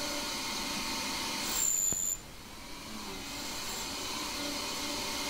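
Small half-horsepower CNC lathe running as a carbide grooving insert cuts a profile into a brass fitting: a steady machine hum with several fixed tones. About two seconds in it grows louder with a high whistle, then drops off suddenly and settles back to the steady hum.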